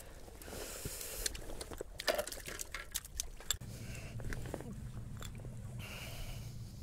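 Scattered clicks and rustling as a freshly landed garfish is handled on the fishing line. About halfway through a steady low hum sets in underneath.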